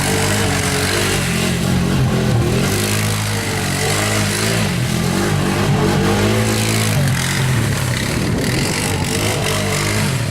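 ATV engine running while being ridden, its pitch rising and falling repeatedly as the throttle is opened and eased off.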